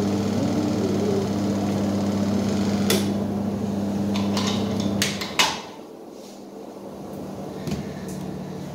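Washing machine motor humming steadily, then switched off suddenly about five seconds in, with several sharp clicks and knocks around the switch-off. The machine is stopped at the end of the wash.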